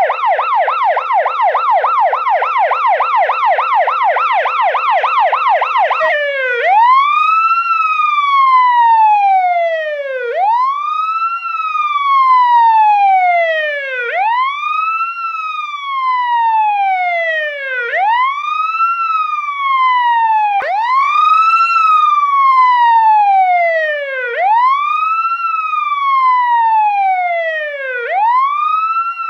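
Police siren sounding, first on the yelp, a rapid up-and-down warble. About six seconds in it switches to the wail, a tone that rises quickly and then falls slowly, repeating about every four seconds.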